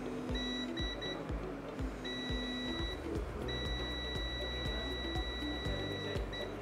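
Digital multimeter's continuity beeper sounding as the probes touch a capacitor on the laptop motherboard: a few short high-pitched beeps, then a longer tone, then one held for about two and a half seconds, the sign of a short across the capacitor on the supply line. Background music with a steady beat runs underneath.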